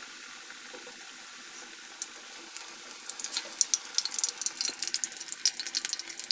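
Besan-battered boiled egg halves deep-frying in hot oil: a steady sizzling hiss that turns into busy crackling and popping about three seconds in.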